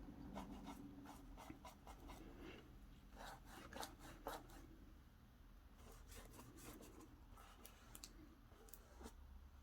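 Faint scratching and light taps of a small brush working metallic wax onto a journal cover.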